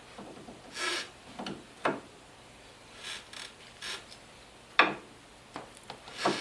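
Hand tools and metal parts being worked on a UTV's front axle: irregular clicks, knocks and short scraping rasps, with a sharp knock a little before the end.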